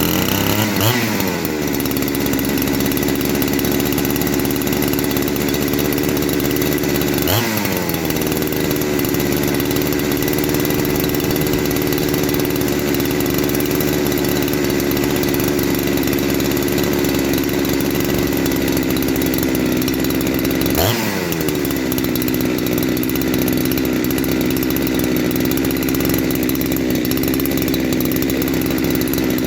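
Two-stroke chainsaw, a Husqvarna 372XP clone refitted with its original carburettor, running steadily at idle. Three times it revs briefly and falls back to idle: about a second in, about 7 seconds in and about 21 seconds in.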